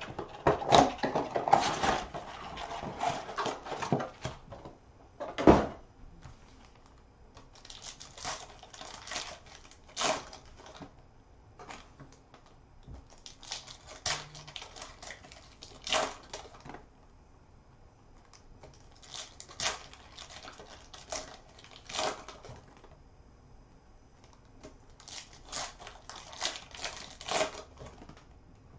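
Bowman Sapphire trading card box being unwrapped and opened, with plastic crinkling for the first few seconds and one sharp snap. Then come clusters of quick clicks every five or six seconds as a foil pack is torn and the cards are flicked through one by one.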